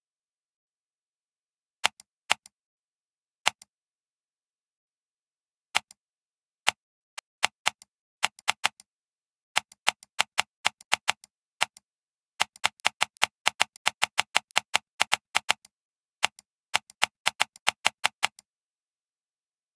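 Computer mouse scroll wheel clicking as it is turned: runs of quick, sharp ticks, about five a second, broken by pauses.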